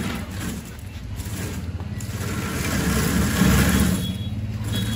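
Homemade tracked Wall-E-style robot driving under remote control: its drive motors run with a steady low hum that dips about a second in, then grows louder toward the middle.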